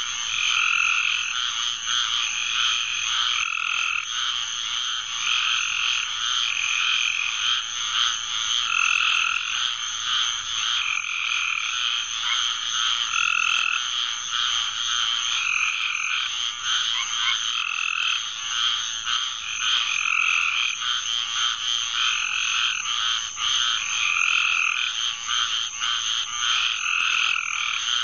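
Chorus of many frogs calling at a pond after heavy rain, with short calls repeating and overlapping every second or two. A steady high-pitched trill runs underneath.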